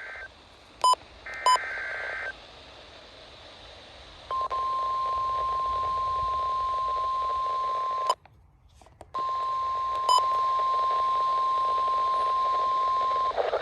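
NOAA Weather Radio weekly test through a Midland WR-120 weather radio's speaker: the last short bursts of the digital SAME header data with a couple of clicks, then the warning alarm tone, a steady high single tone that runs about four seconds, drops out for about a second, and returns for about four more seconds, all over radio hiss.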